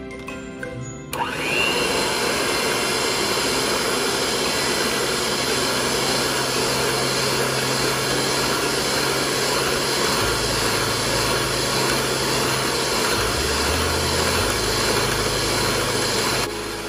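Electric hand mixer starting up about a second in and running steadily, its wire beaters whipping a creamed butter and milk cake batter in a glass bowl. It drops away shortly before the end.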